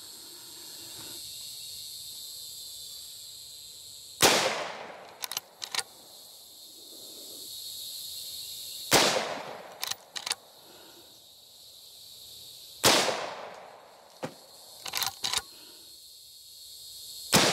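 Winchester 9422M lever-action .22 Magnum rifle firing four single shots about four seconds apart, each a sharp crack with a short echo, the last right at the end. Smaller clicks come between the shots, and a steady high insect buzz runs underneath.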